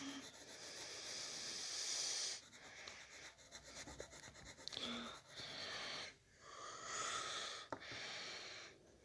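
Faint, wheezy breathing close to the microphone, in breaths of one to two seconds with short pauses between, with the scratch of a pen drawing on paper.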